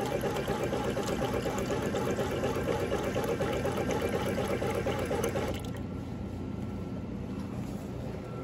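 Orange juice dispenser running with the push button held, juice pouring into a paper cup, cutting off about five and a half seconds in when the button is released.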